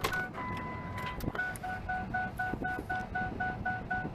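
Electronic warning beeper in a car, beeping evenly at about four beeps a second. Soon after the start it changes to one steady, slightly higher tone for about a second, then goes back to beeping, over the low hum of the car.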